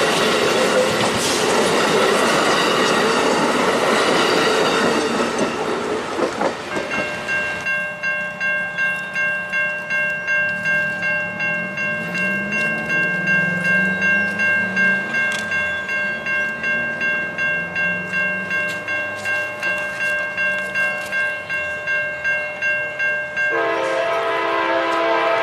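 An Amtrak passenger train's cars rushing past over the rails for the first several seconds. Then grade-crossing bells ring with a steady pulse, about two strokes a second. Near the end a locomotive horn starts to blow over the bells.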